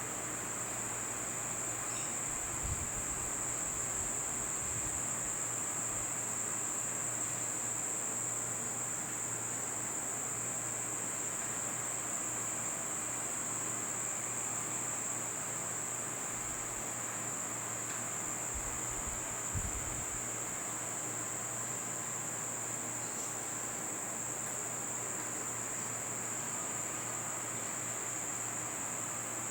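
Insects trilling, a steady high-pitched chorus that does not let up, with a couple of soft low thumps.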